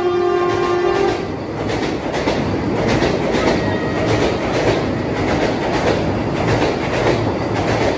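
A train horn sounds and cuts off about a second in. Then a train passes at speed: a loud, steady rush and rumble of wheels with rapid clicks over the rail joints.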